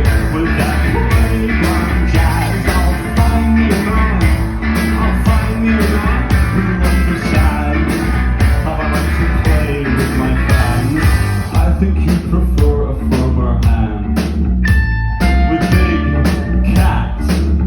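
Live rock band playing a song, with a steady drum beat, guitars and a male singer; the band thins out briefly about two-thirds of the way through before coming back in full.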